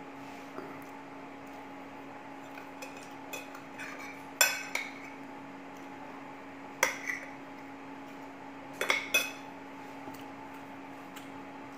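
A metal spoon clinking against plates and a bowl while food is served and eaten. There are a few light taps, then sharp clinks with a short ring: the loudest comes about four seconds in, another near seven seconds, and a quick pair near nine seconds. A steady low machine hum runs underneath.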